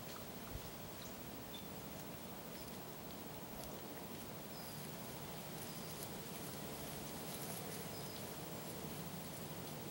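Faint outdoor field ambience: a low steady hiss with a few brief high chirps and soft ticks scattered through it.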